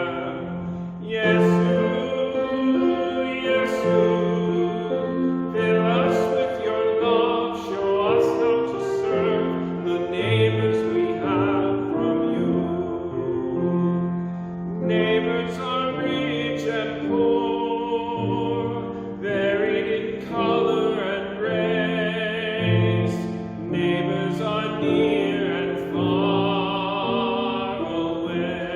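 Sacred music: a solo singer in a classical, operatic style with a strong vibrato, holding long notes over sustained keyboard accompaniment.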